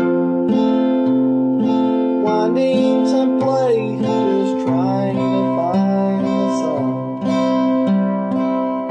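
Steel-string acoustic guitar fingerpicked with a thumb pick, alternating bass notes under sustained chords at an even pulse of about two strokes a second. A man's voice sings over it for a few seconds in the middle.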